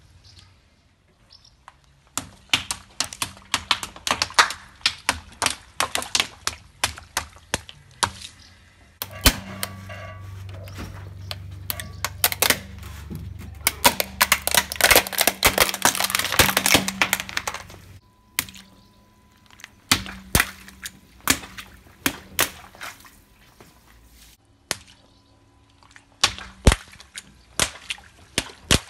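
Car tyre rolling over and crushing balloons and plastic toys: a long run of sharp cracks, crunches and pops. It is densest and loudest about midway, over a low steady hum.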